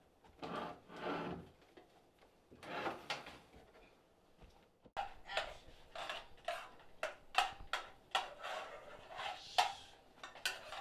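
Faint, irregular knocks and clacks on hard household surfaces. A few soft ones come early, then from about halfway in they run at two or three a second.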